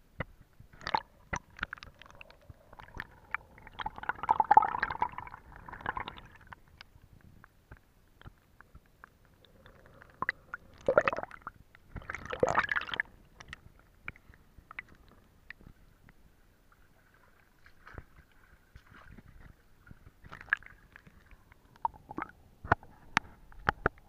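Water gurgling and sloshing around a camera held in a shallow stream, with scattered clicks and knocks; the gurgling swells twice, about four seconds in and again around eleven to thirteen seconds in.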